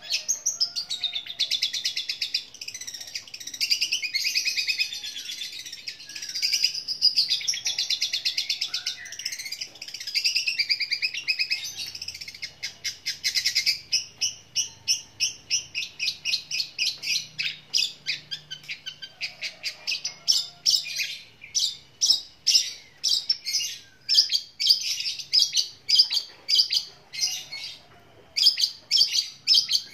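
Caged long-tailed shrike (cendet) singing loudly and without pause, a dense chattering of mimicked sparrow-like chirps. About halfway through it changes to a run of sharp repeated notes, two or three a second.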